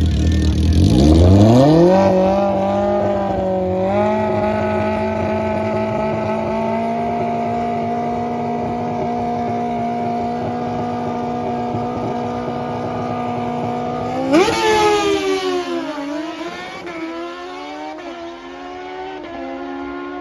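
Drag-racing motorcycle engine revving up from a low idle to a high, steady rpm about a second in and holding it at the start line. About fourteen seconds in it launches with a sudden jump in pitch and loudness, then pulls away down the strip, its pitch rising and dropping with each gear shift as it fades.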